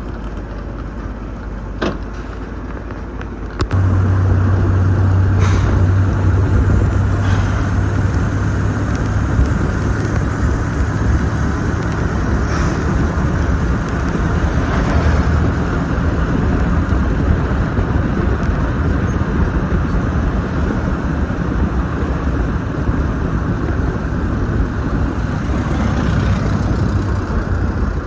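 A vehicle running and under way, most likely the 1923 Lincoln touring car being driven. A loud, steady low drone with road and wind noise starts suddenly about four seconds in, after a couple of faint clicks.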